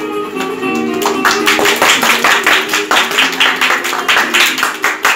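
Music with a steady melody, joined about a second in by a group of people clapping their hands in time to it, about three claps a second.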